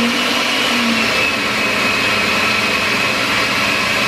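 Countertop blender running steadily at speed, pureeing tomatoes into salsa, its motor hum topped by a high whine.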